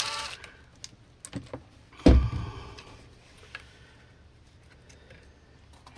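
Metal fittings and tools being handled, with scattered light clicks and one heavy thump about two seconds in.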